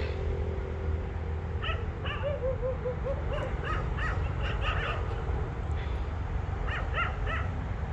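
Birds calling outdoors: clusters of short, harsh calls repeated throughout, with a quick run of about five lower chirps a little over two seconds in, over a steady low rumble.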